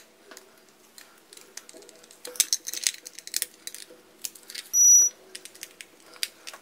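Light clicks and rattles of a plastic epilator housing and its wires being handled, over a faint steady hum. About five seconds in, one short, high electronic beep stands out as the loudest sound.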